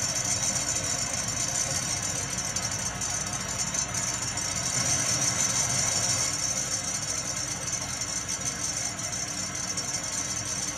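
Van de Graaff generator running steadily, its motor and belt giving a continuous mechanical whirr.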